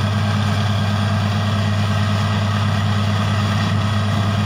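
Truck-mounted borewell drilling rig running steadily: a constant low engine and compressor drone, with an even hiss as compressed air blows dust and water out of the borehole.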